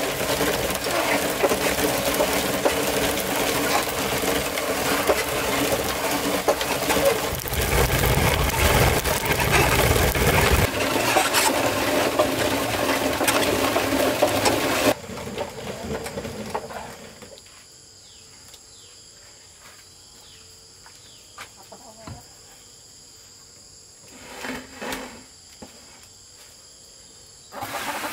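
Hand-turned wooden rice-hulling mill grinding paddy rice: a loud, continuous rasping grind as the upper wooden drum is spun against the lower one. It cuts off abruptly about halfway through, leaving only faint scattered ticks.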